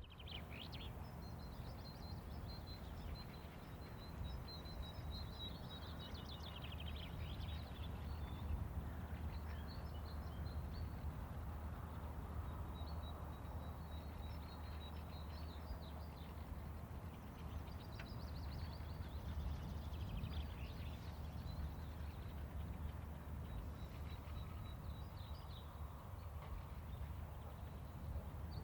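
Faint outdoor ambience: small birds chirping and trilling on and off over a low, steady hum.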